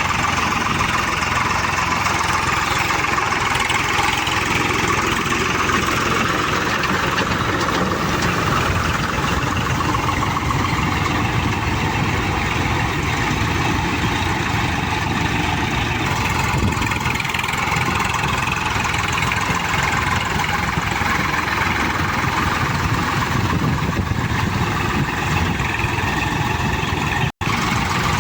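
Swaraj 735 FE tractor's three-cylinder diesel engine running steadily, with all sound dropping out for an instant near the end.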